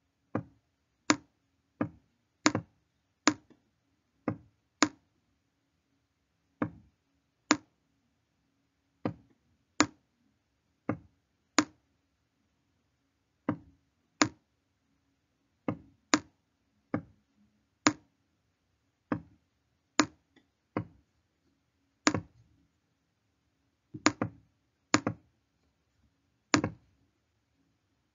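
Sharp, irregular clicks, roughly one a second and sometimes in quick pairs, from the writing tool as a label is handwritten stroke by stroke on screen, over a faint steady hum.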